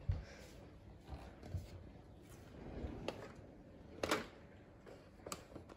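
Faint handling sounds in a kitchen: a few soft footsteps on a wooden floor, then a cutlery drawer sliding open, then a sharp clink of stainless-steel cutlery about two-thirds through and smaller clinks near the end as a spoon is taken out.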